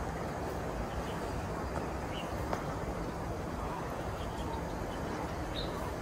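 Steady outdoor background noise with a low rumble, and a few faint, short high bird chirps about two seconds in and again near the end.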